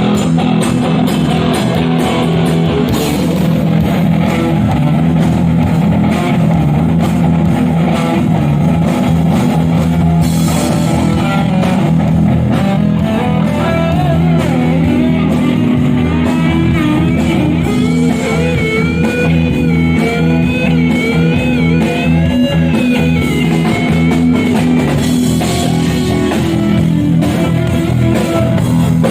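Live rock band playing through a PA at a sound check: guitar over a drum kit, with a wavering, bending lead line in the second half.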